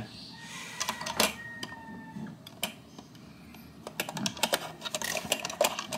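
Light plastic clicks and taps from a quartz alarm clock's battery compartment as a battery is fitted, scattered and growing more frequent in the second half.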